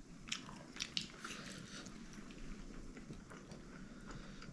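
Eating sounds: a few short, sharp mouth clicks and smacks in the first second and a half of chewing, then only faint steady room background.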